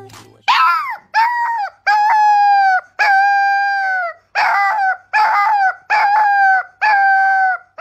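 A dog howling in a run of about eight high, drawn-out cries, each half a second to a second long, the first one falling in pitch.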